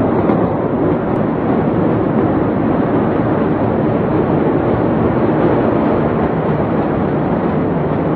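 A steady, loud rushing noise with no distinct bangs, pitched sounds or voices.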